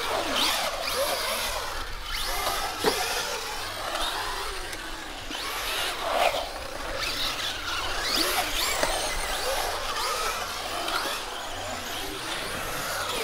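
Electric radio-controlled cars driving on concrete, their motors whining up and down in pitch again and again as they throttle up and slow.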